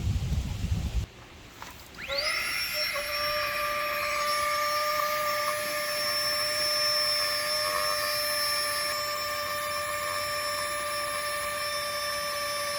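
A small electric motor spins up about two seconds in and then runs at a steady high-pitched whine. Before it, a short stretch of low wind rumble is heard.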